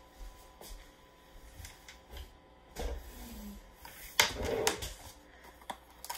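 Light handling sounds on a countertop: a small cardboard box of labels and a pen being picked up and handled, with a few soft knocks and a louder rustle about four seconds in.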